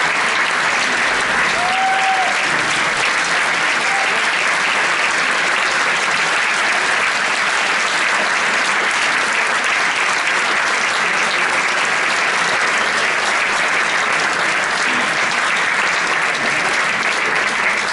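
Audience in a concert hall applauding steadily after an orchestral performance.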